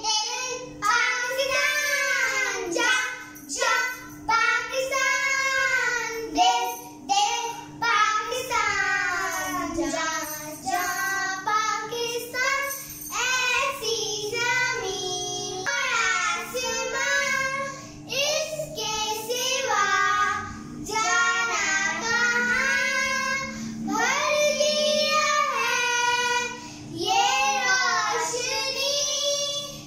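Two young girls singing a patriotic song together, with held, sweeping notes, over a faint steady hum.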